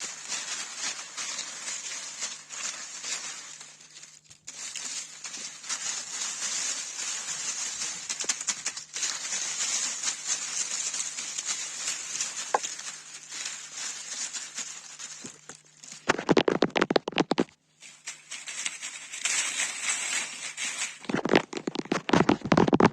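Close-miked ASMR scratching on a gibi stick, a long dry rustle of fine scratches, broken by bursts of fast, louder tapping about sixteen seconds in and again in the last two seconds.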